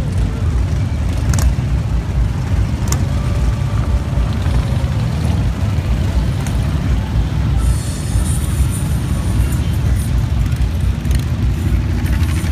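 Many cruiser motorcycles riding past in a continuous stream, their engines making a steady deep rumble, with two sharp clicks in the first few seconds.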